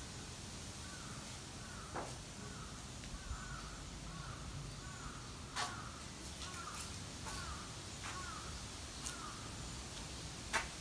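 A crow cawing in a run of about a dozen short calls, close to two a second, faint under the background. A few sharp clicks or knocks come through as well, the loudest near the end.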